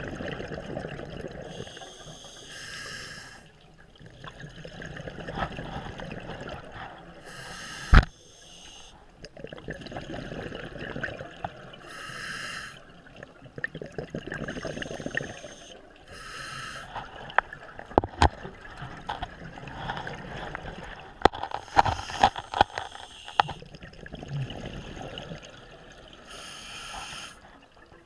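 Scuba diver breathing through a regulator underwater: a short hiss on each inhalation, about every five seconds, alternating with the bubbling of each exhalation. Two sharp knocks, about eight and eighteen seconds in, are the loudest sounds.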